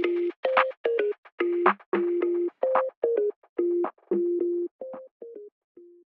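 Background music: a simple electronic tune of short, evenly spaced notes on two or three low pitches, each with a clicking attack, growing fainter near the end and stopping.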